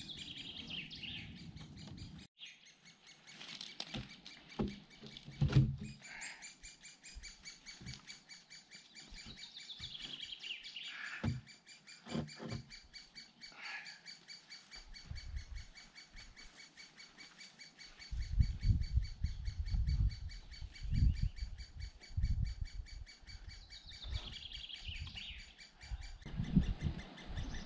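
Woodland birds singing: a descending song phrase of about two seconds comes three times, near the start, about ten seconds in and near the end, among shorter chirps. A sharp knock comes about five seconds in, and from about two-thirds of the way through there are irregular low thumps.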